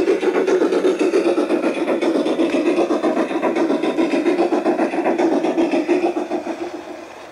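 A sound module in a G-scale model D&RGW C-16 2-8-0 steam locomotive plays rapid steam chuffing through its small speaker as the train runs. The sound fades near the end as the train moves away.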